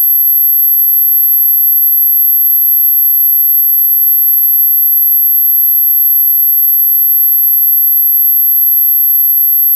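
A single pure electronic tone at 12,200 Hz, a very high steady whine standing in for an ultrasonic dog whistle, held at one pitch and level without a break.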